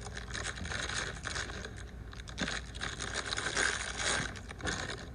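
Fidget toys being handled and played with by hand: a continuous scratchy rustling with many small clicks.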